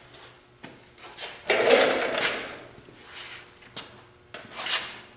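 Handling noises at a tube-steel roll cage: rubbing and scraping with a few sharp knocks. The loudest, a rub lasting about a second, comes about one and a half seconds in, and a shorter one comes near the end.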